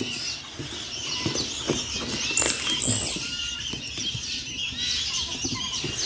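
Baby songbirds chirping in many short high calls, with rustling and knocking as woven bamboo baskets and a cardboard box are handled.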